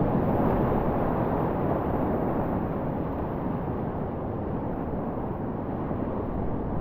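Whitewater rushing steadily through a river rapid, a little louder at the start.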